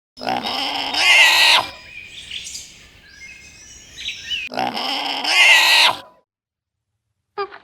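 An animal calling twice, each a harsh cry about a second and a half long, with faint bird chirps in between.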